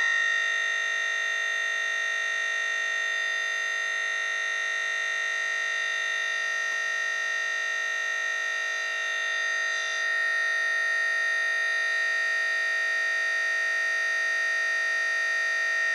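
Steady electronic buzzing drone of a crashed computer's audio stuck looping a tiny fragment of sound, as in a blue screen of death. It holds unchanged, shifting slightly about ten seconds in.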